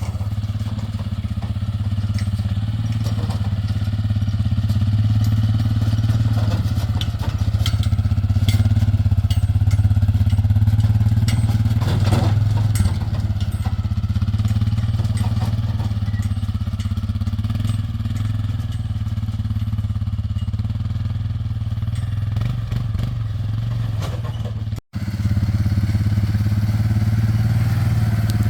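Steady low drone of a vehicle driving at road speed, heard from inside the cab, with a few faint rattles; it cuts out for an instant near the end.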